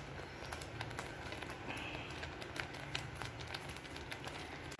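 Faint scattered pops and crackle of a thick tomato masala gravy cooking in a pan, over a low steady hum.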